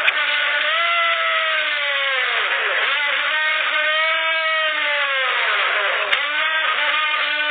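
An engine revving up and down over and over, its pitch rising and falling about every three seconds, with a single sharp click about six seconds in.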